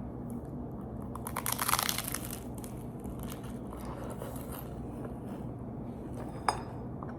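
Biting into a flaky puff pastry: a crackly crunch of shattering pastry for about a second and a half starting a second in, then fainter chewing crackles and a single click near the end. The pastry is a little hard.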